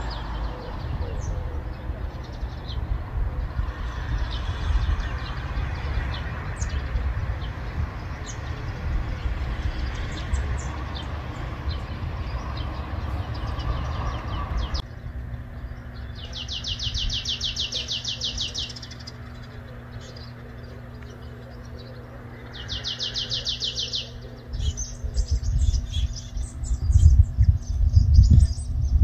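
Small songbirds chirping outdoors, with two fast trills of about two to three seconds each in the second half. A steady background of road traffic fills the first half, and there are low thumps near the end.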